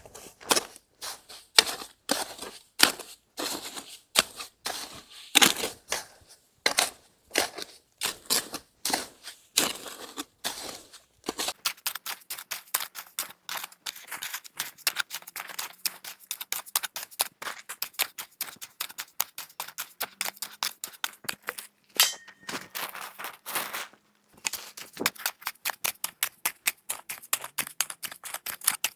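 A long run of sharp clicks and knocks, spaced and irregular for the first ten seconds or so, then coming fast and dense, several a second, with a brief pause about two-thirds of the way in.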